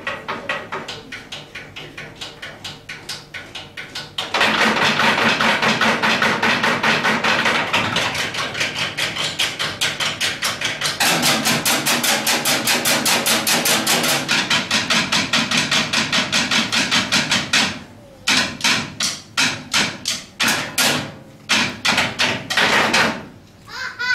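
An ensemble drumming fast, even rhythms with sticks on wooden school desks. The playing gets much louder about four seconds in, and near the end it breaks into short stop-start phrases with brief gaps between them.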